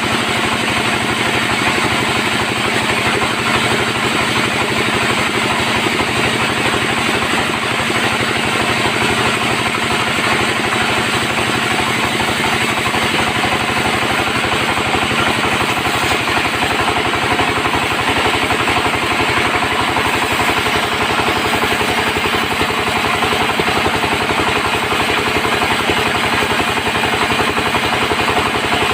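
Band sawmill running steadily, with a continuous engine-like drone and fast, even pulsing; a low hum in it drops away about halfway through.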